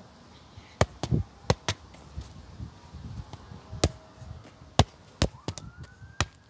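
Football being kicked repeatedly while juggled: a string of about ten sharp thuds of foot on ball, some coming in quick succession. Near the end a faint high tone slides upward and holds.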